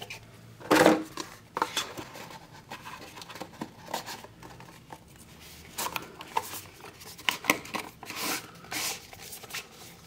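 Cardboard pen gift box being handled: a knock and scrape about a second in, then scattered scraping and light taps as the insert tray is slid into its paperboard sleeve.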